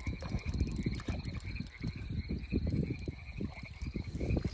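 Frogs calling in a steady pulsing chorus at the water's edge, under irregular low thumps and rustling close to the microphone.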